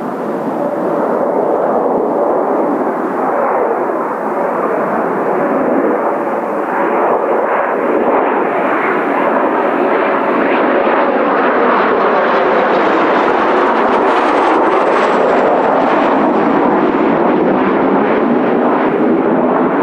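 Jet noise from Kawasaki T-4 jet trainers' turbofan engines: a loud, steady roar that builds over the first couple of seconds and stays loud, turning brighter and more hissing about halfway through.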